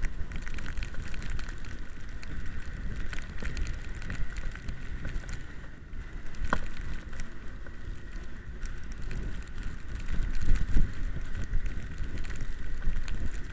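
E-bike riding through snow: wind buffeting the microphone over low tyre rumble, with a steady high electric motor whine and scattered clicks and rattles, one sharper click about halfway through.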